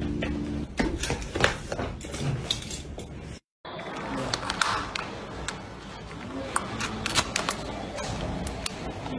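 Scattered sharp clicks and taps, with a short break part way through. In the second half they come from hands handling the heel of a black high-heeled shoe: small hard clicks and scrapes.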